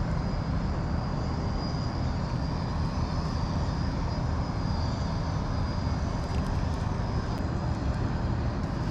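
Steady low rumble of wind buffeting a head-mounted action camera's microphone.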